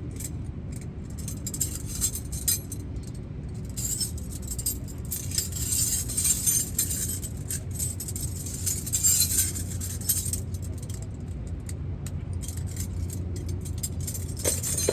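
Metal hand tools clinking and jangling as they are rummaged through and handled, over a steady low hum.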